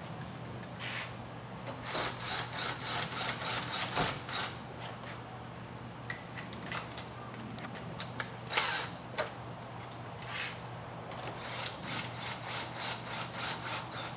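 Cordless drill being handled and worked: two runs of quick rasping strokes, about four a second, with a few sharper clicks in between.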